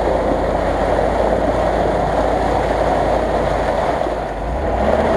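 Land Rover Discovery II's engine running under load as it wades through a muddy puddle, with tyres churning and water splashing. The engine note shifts about four and a half seconds in.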